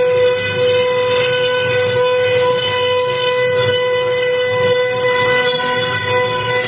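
CNC router spindle running at a steady speed with a constant high whine, over rough cutting and machine noise.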